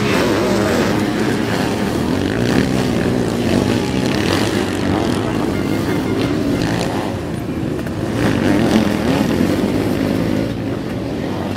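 Sidecar motocross outfits' engines revving hard as they race on the dirt track, several machines at once, their pitch rising and falling, swelling louder a little past the middle.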